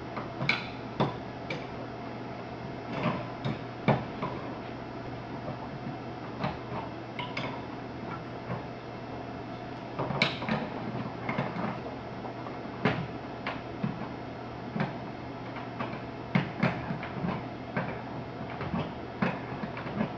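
Irregular metallic clicks and clinks as brass quick-connect fittings on a refrigerant line set are threaded onto an air conditioner outdoor unit's service valves and turned with a wrench, over a steady low hum.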